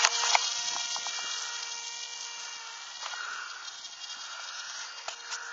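Electric motor and propeller of an EasyStar RC plane whining steadily in flight. It fades over the first two or three seconds, then holds faint and even.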